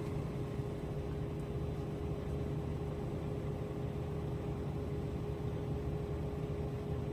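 Delivery lorry's diesel engine idling while parked, heard from inside the cab: a steady low hum with a thin steady tone over it.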